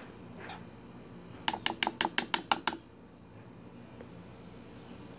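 Metal spoon clinking against the inside of a stainless steel Stanley Adventure cook pot as rice is stirred and scooped: a single clink, then a quick run of about nine clinks, roughly seven a second, about a second and a half in.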